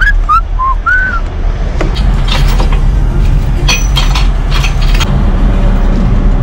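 Heavy truck engine idling steadily, with four short whistled notes in the first second and a few scattered clicks and knocks after.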